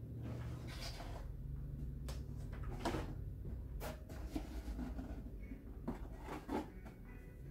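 Light knocks, taps and rubbing as a tall white board pillar stand is lifted, tipped over and turned by hand. The sharpest tap comes about three seconds in.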